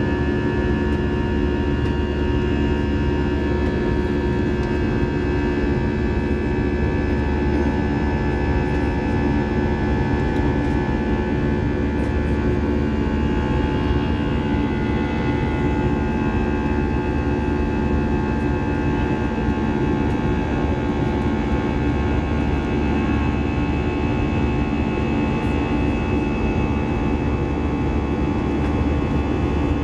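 Cabin noise of an Airbus A319-100 in its climb, heard from inside the passenger cabin: the jet engines give a steady rumble with a low drone and several steady whining tones over it.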